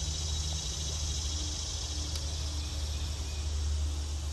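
Steady high-pitched insect chorus, like crickets, over a steady low rumble.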